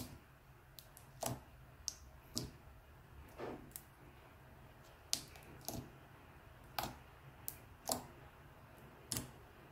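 Clear glitter slime made from Elmer's clear glue being poked and stretched by hand, giving about a dozen sharp clicks and pops at irregular spacing.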